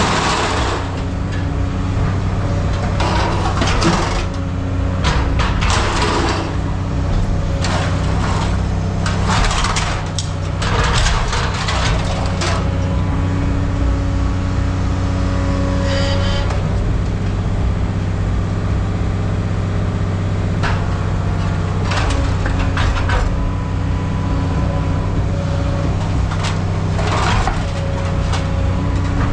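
A machine's engine running steadily, with repeated bursts of scrap metal clattering and clanking.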